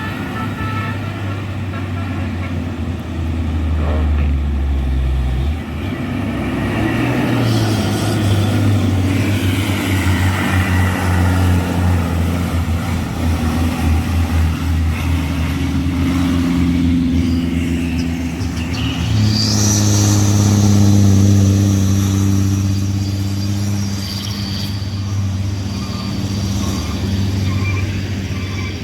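Heavy diesel truck engine labouring under load up a steep grade, a loud low drone whose pitch shifts several times. A thin high whistle rises over it for a few seconds about two-thirds of the way in.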